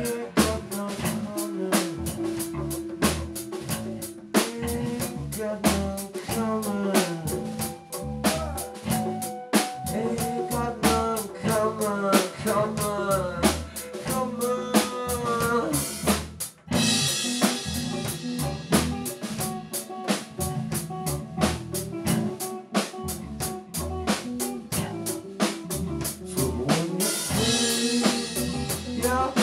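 Live band jamming on drum kit, electric bass and electric guitar, the drums keeping a steady beat. The band breaks off briefly about halfway through and comes back in on cymbal crashes, with more crashes near the end.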